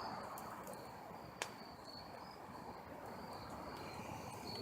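Crickets trilling in a steady, high-pitched chorus, with one sharp click about a second and a half in.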